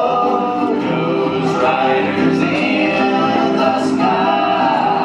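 Music with several voices singing together in held, steady notes.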